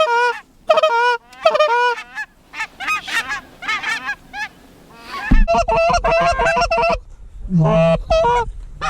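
Canada geese honking and clucking in a steady series of short calls, thickening into many overlapping calls about halfway through as the flock comes in. Wind rumbles on the microphone from about halfway on.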